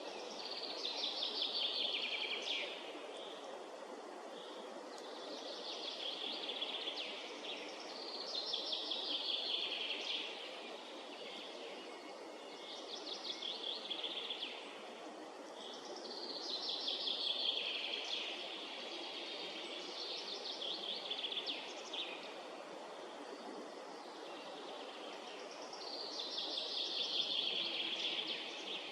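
A songbird singing the same falling phrase of about two seconds, roughly seven times, every three to four seconds, over a steady low background hiss of the woods.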